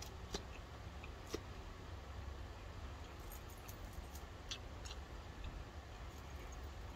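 Quiet eating sounds: scattered small clicks of a plastic fork against a plastic salad container, with soft chewing and mouth clicks, over a low steady hum.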